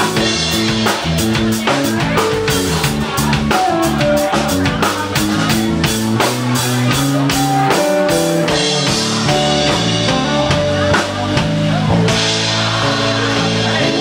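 Rock band music: drum kit playing a steady beat of about four hits a second under bass and electric guitar. The drumming drops out about two thirds of the way through, and the sound fills out again near the end.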